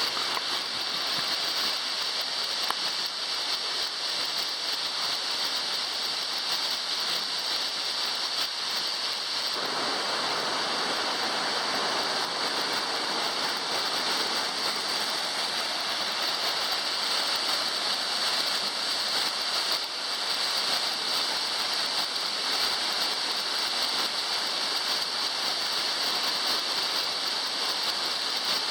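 Waterfall: steady rush of falling water, growing fuller about ten seconds in.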